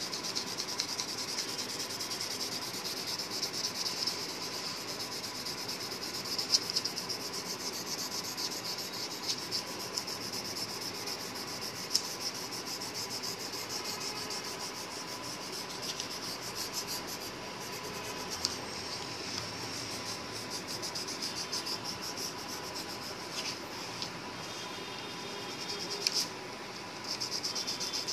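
Coloured pencil rubbing on paper in light shading strokes. A steady high cricket trill of rapid pulses carries on underneath.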